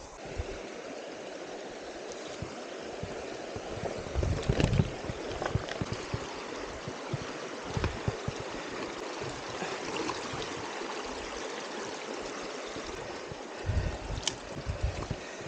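Steady rush of running water, with a few low bumps around four to five seconds in and again near the end.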